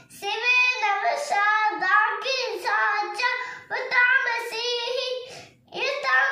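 A young boy singing a devotional song alone in a high child's voice, with no accompaniment, pausing briefly about five and a half seconds in.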